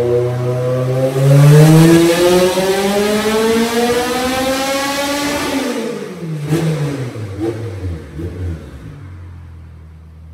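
High-compression Honda K24 four-cylinder race engine revving under load on a chassis dyno. The revs climb steadily for about five seconds, then the throttle closes and the revs fall away to a low idle.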